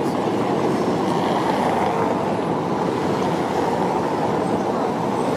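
A tram running along its rails, heard from aboard as a steady running noise.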